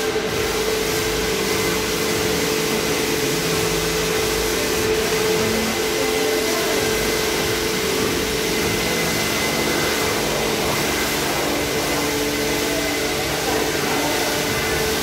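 High-pressure car washer running steadily: the pump motor's hum under the hiss of the water jet spraying onto the car's wheels and body.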